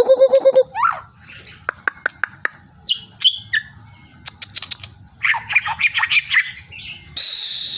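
White-rumped shama singing a varied song of rapid repeated notes, sharp clicks, short whistles and trills, with a loud harsh rasp about seven seconds in.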